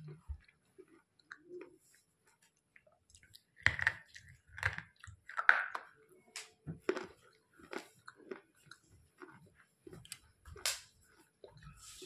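A person chewing a soft slate pencil: irregular, muted crunches and wet chewing clicks that begin about three seconds in. The pencil is soft, so it gives little crunch.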